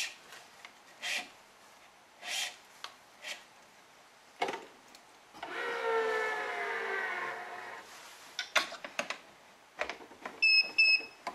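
Badminton string being woven through the main strings and pulled through, with short rubbing swishes. About five seconds in comes a longer pull with a whining tone that glides slightly downward. Several sharp clicks follow, then two short electronic beeps from the stringing machine near the end.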